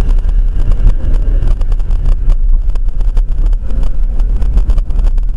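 Inside a moving car heard through a dashcam: a loud, steady low rumble of engine and road, broken by frequent short knocks and rattles.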